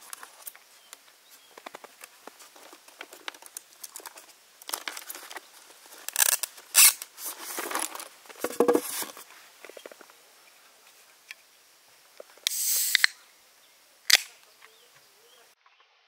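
Rustling and clattering of objects being handled and moved about. Near the end comes a short hiss and then a sharp click, as a drink can is opened.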